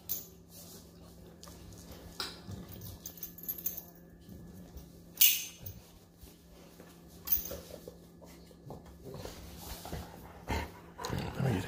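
A young dog whimpering softly while being stroked, with a few short clicks and rustles in between.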